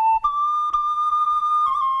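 End-blown bamboo flute playing a slow melody in long held notes: a step up to a higher note just after the start, then a step down with a quick ornamental flick near the end. The tone is clear and nearly pure, with a short breath break between the first two notes.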